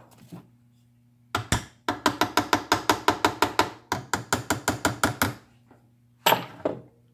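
Quick light hammer taps on the metal body of a Lucas C40 generator, about five or six a second in a run of some four seconds, then two more taps near the end. The taps are working the reassembled end bracket and its brush connector down into place.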